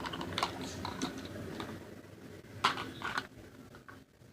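A few light clicks and taps of small objects being handled and set down, spaced irregularly and thinning out toward the end.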